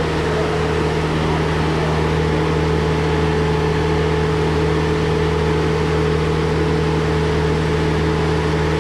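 Marine travel lift's engine running at a steady pitch with an even drone as the lift carries a boat hung in its slings.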